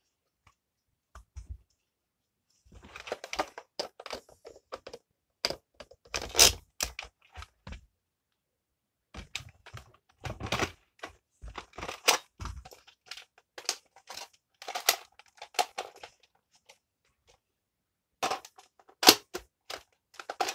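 Handling noise from a toy Nerf blaster being picked up and moved about: irregular bursts of rustling, knocks and plastic clicks with short pauses between them, and a couple of sharper knocks.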